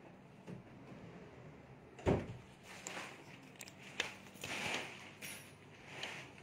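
Wardrobe glass sliding doors being handled: a sharp thump about two seconds in, a few clicks, and a short sliding swish a little after four seconds in.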